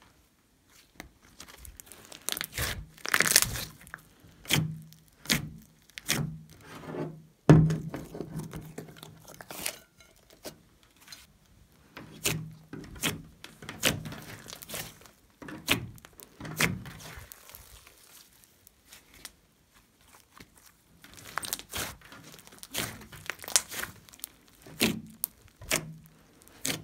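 A large batch of mixed slime being stretched, poked and squeezed by hand, giving irregular crackling pops and squishes. They come in clusters, with a short lull a little past the middle.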